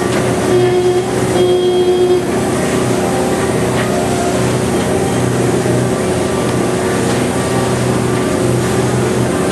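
Ferry boat's engine running steadily under a rushing noise of water. About half a second in come two short, louder pitched tones, the second ending a little after two seconds.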